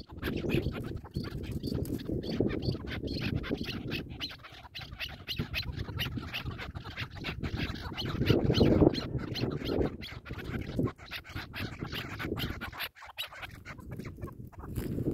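Chukar partridges calling with rapid runs of clucking notes.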